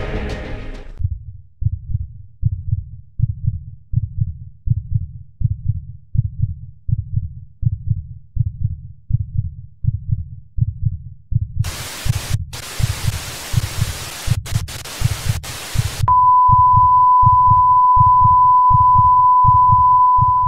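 A low heartbeat sound effect thumps about twice a second. About twelve seconds in, a burst of TV static hiss with brief dropouts joins it for about four seconds, then gives way to a loud, steady test tone, the kind played over colour bars.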